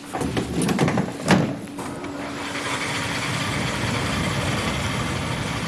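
Wind tunnel running: air rushing through the test section, building to a steady rush about two seconds in after a few knocks at the start.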